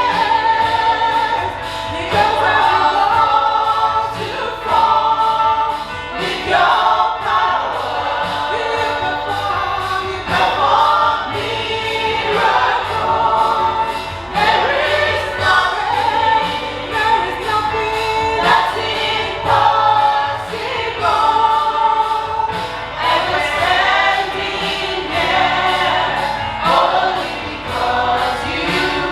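Gospel choir singing a worship song with instrumental backing and a steady bass line.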